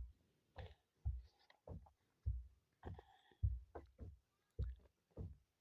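Handling noise from a collar (lapel) microphone being reassembled: an irregular string of soft low thumps and clicks, about two a second, as its parts are fitted back on.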